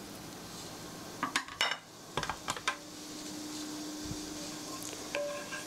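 A kitchen utensil clinking against a plate and pan: a cluster of sharp clinks about a second in, another about two seconds in, and one more ringing clink near the end.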